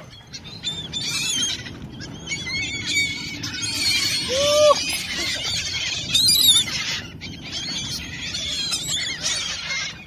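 A large flock of gulls calling over one another, a dense chatter of high squawks that is busiest in the middle, with one lower arching call about four seconds in.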